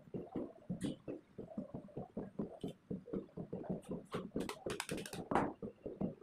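Indistinct talking throughout, with a cluster of sharp clicks and rustles about four to five seconds in from cotton lacing tape being pulled and tied around a motor stator's copper windings.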